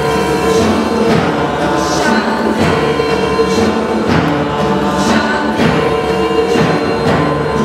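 Mixed choir singing a hymn in unison, with drums keeping a steady beat about twice a second.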